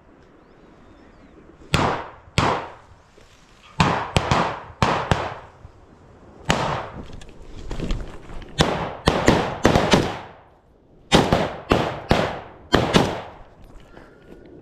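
Shotgun shots, well over a dozen sharp bangs in quick groups of two to five, each with a short echoing tail.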